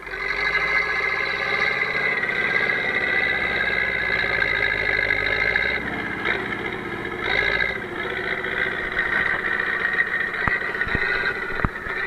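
DT-75 crawler tractor's diesel engine running under load as its dozer blade pushes deep snow, a steady drone with a whine on top. A few sharp clicks near the end.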